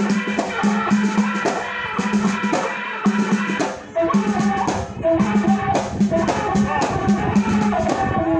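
Live Alaoui folk music from eastern Morocco: bendir frame drums beaten in a fast, steady rhythm, with a repeating pitched melody over the beat.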